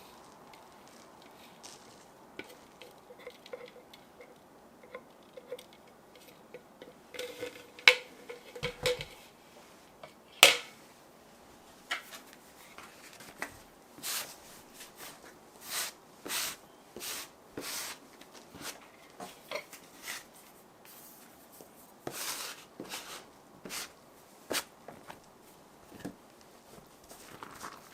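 Kitchen food-prep handling sounds: scattered light clinks and taps of utensils and dishes with soft rustling, and two sharp clacks about a third of the way through.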